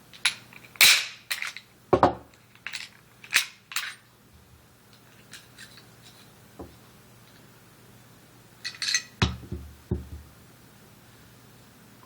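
Beretta 92FS pistol being field-stripped: sharp metallic clicks and clacks of the slide and parts being worked and set down. There is a quick run of them in the first four seconds, a few faint ticks, then another cluster about nine seconds in.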